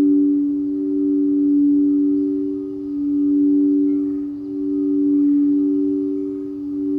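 Singing bowl held in a sustained ring, two close low pitches sounding together. The tone swells and fades evenly about every two seconds, with no fresh strike.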